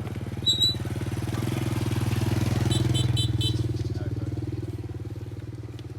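A motorbike engine passes by. It grows louder to a peak about halfway through, then fades, and a few short high pips sound near the middle.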